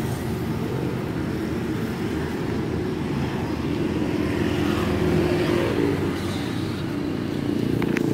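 Road traffic: a steady low engine hum from vehicles on the street, with a couple of light clicks near the end.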